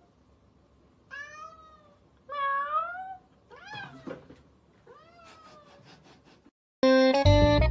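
A cat meowing: four short meows, the first two rising in pitch and the later ones fainter. Near the end, keyboard music starts abruptly.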